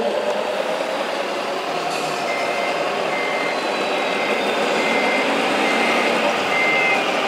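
Reversing beeper from a radio-controlled scale truck's sound module: short high beeps repeating evenly, a little more than one a second, starting about two seconds in, over steady hall noise.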